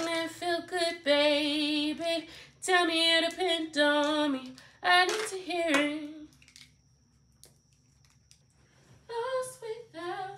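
A woman singing unaccompanied, holding long notes, some with a clear vibrato; she breaks off about six seconds in and starts singing again near the end.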